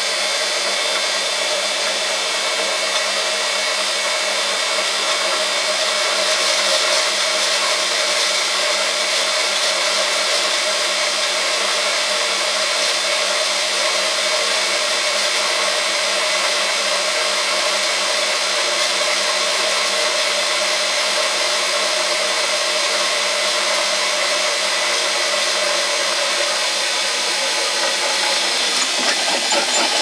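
Drill press driven by a washing machine's brushed universal motor under electronic speed control, boring a 7 mm twist drill through 10 mm steel plate: motor and cutting noise running steadily as the bit peels off steel curls.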